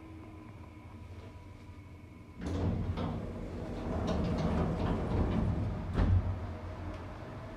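The power-operated sliding car doors of a 1992 Stricker hydraulic elevator opening. A faint steady hum comes first, then about two and a half seconds in the doors start to slide open with a rumbling run, and there is a thud near six seconds.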